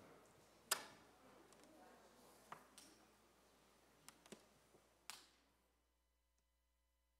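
Faint room noise with about six scattered sharp clicks and knocks, the loudest a little under a second in. Then the audio cuts to dead silence about six seconds in, as the stream feed ends.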